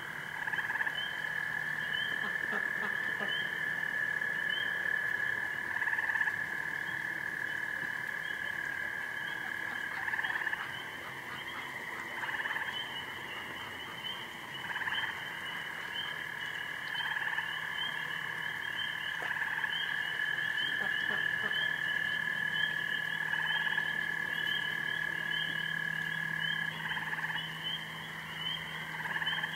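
Night chorus of frogs calling: a long unbroken trill that breaks off briefly near the end and resumes, over rapid high repeated chirps and intermittent lower calls.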